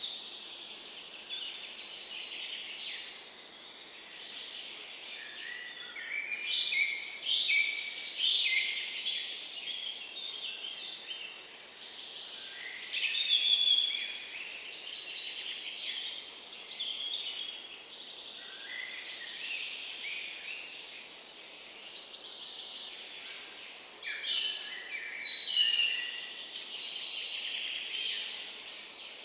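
Several birds chirping and trilling at once, a continuous chorus of short overlapping calls over a faint steady background hiss.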